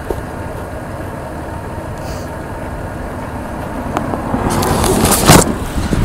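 Road traffic going by, with a vehicle getting louder from about four seconds in, then rubbing and bumping on the microphone near the end as the camera is handled.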